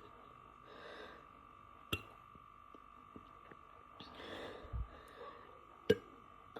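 A small, short, low burp about five seconds in, weak because the Dr Pepper had gone flat, between soft breaths; two sharp clicks, the loudest sounds, come at about two and six seconds.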